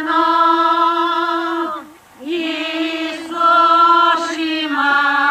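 Group of village women singing a Bulgarian folk song a cappella in unison, in long held notes, with short breaks for breath about two seconds in and again near the end.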